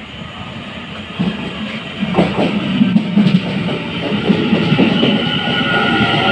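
A Taiwan Railway train drawing near and growing louder, its wheels clattering over the rails, with a high thin wheel squeal starting to ring out near the end.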